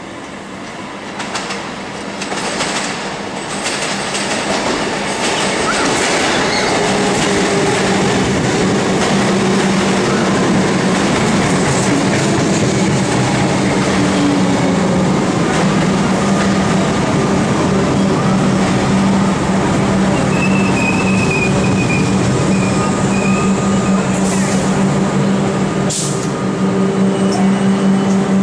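Comeng electric suburban train running into a covered station platform: wheels on rail with a steady motor hum, growing louder over the first several seconds as it comes in. A thin wheel squeal rises about two-thirds of the way through.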